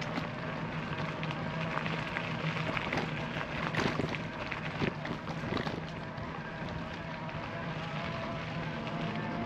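Bicycle riding along a path: steady tyre rolling noise with many scattered small clicks and rattles.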